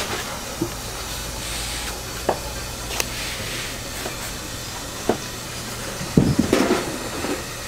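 Steady hiss of steam from a stainless food steamer, with several light knocks as plates are set down on the counter and a louder clatter about six seconds in.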